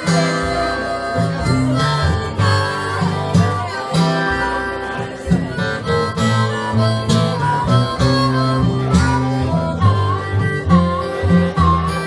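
Acoustic blues played live: a harmonica over an acoustic guitar rhythm, the harmonica bending notes toward the end.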